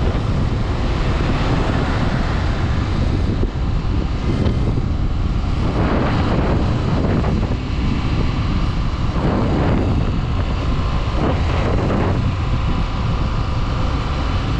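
Small-displacement motorcycle engine running steadily while riding, with wind rushing over the microphone.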